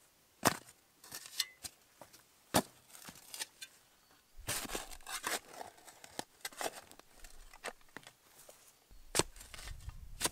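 Steel shovel blade stabbing into rooty forest soil: a few sharp chops, then a longer stretch of scraping and tearing earth starting about four and a half seconds in, and another strike near the end.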